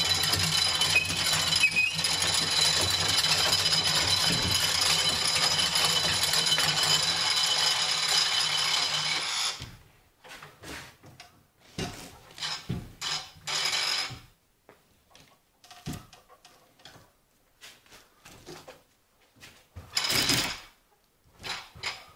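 Edma panel lift being cranked up with an OSB board on it. Its winch makes a steady mechanical noise that stops abruptly about nine and a half seconds in. After that come scattered knocks and clatter, with a louder scraping burst near the end as the board is pushed into place against the ceiling frame.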